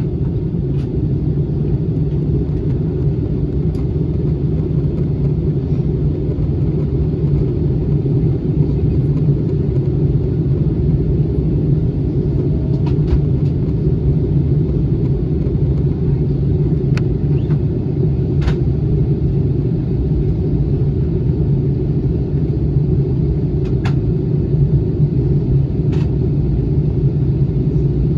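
Steady low rumble inside the cabin of an Airbus A321 on approach, the engine and airflow noise heard from a window seat, with a few faint clicks from the cabin.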